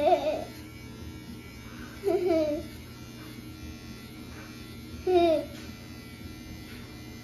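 Electric hair clippers buzzing steadily as they cut a small child's hair. The child lets out three short, high-pitched vocal sounds: at the start, about two seconds in, and about five seconds in.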